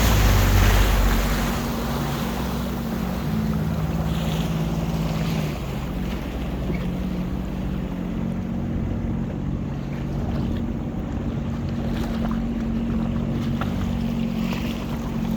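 Jet ski engine running at a steady pitch, with wind buffeting the microphone and water noise. It is louder for the first second or so, then eases to an even level.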